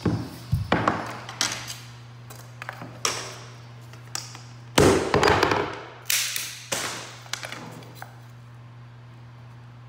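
A series of sharp wooden knocks and taps as carpet tack strips are handled and set down on a hardwood floor against the baseboard. The knocks are irregular, loudest in a quick cluster about five seconds in, and they stop about eight seconds in.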